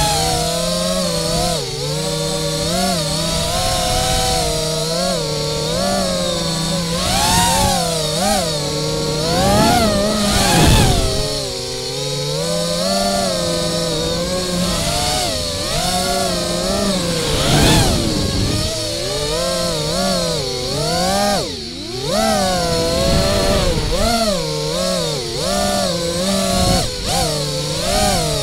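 FPV racing quadcopter's four brushless 2207 motors and propellers whining, the pitch rising and falling over and over with throttle changes, heard through the onboard camera's microphone.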